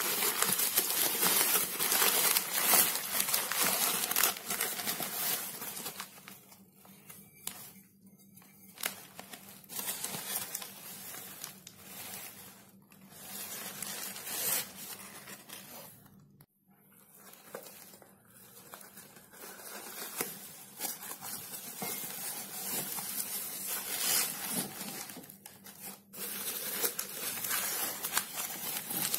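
Plastic carrier bags and newspaper crinkling and rustling as mugs are unwrapped by hand. Loudest for the first few seconds and again near the end, with a quieter stretch in between.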